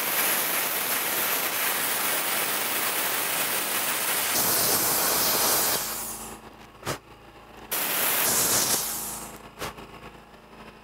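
Vevor plasma cutter hissing steadily as its arc cuts through thick (about 5/16 inch) steel angle iron. The hiss cuts off about six seconds in. A second, shorter hiss follows a couple of seconds later and fades away.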